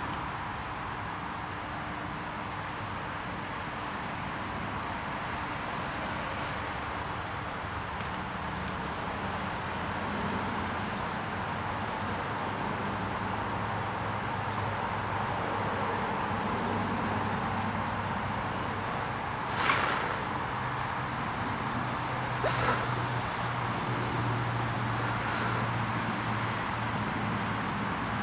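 Outdoor background noise: a steady hiss with a low engine-like hum, as of distant traffic, that grows louder in the second half, and a faint fast high ticking throughout. Two brief rushes of noise stand out about two-thirds of the way through.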